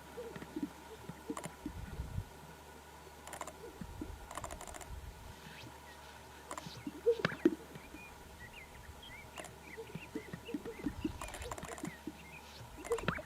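Scattered clicks and knocks, the loudest a short cluster about seven seconds in, with faint short bird chirps from about eight seconds in.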